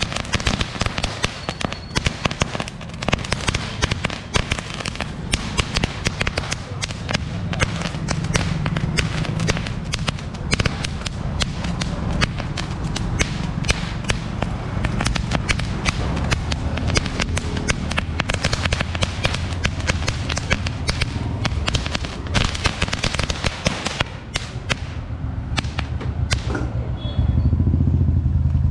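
A saravedi, a long string of firecrackers, going off in a dense run of rapid bangs that thins to scattered pops and stops about two seconds before the end. A low, steady rumble follows.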